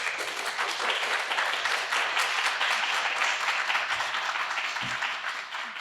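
Audience applauding, a steady spread of many hands clapping that fades away near the end.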